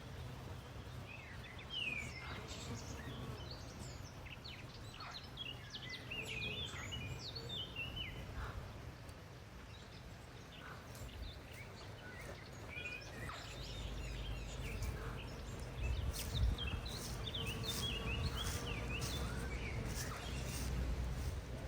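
Several small birds chirping and singing in quick, overlapping phrases, over a steady low rumble.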